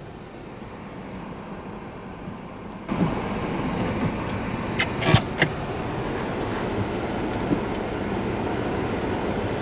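Steady running noise inside the cabin of a parked 2020 Hyundai Tucson. It steps up louder about three seconds in, with a few sharp clicks around the middle.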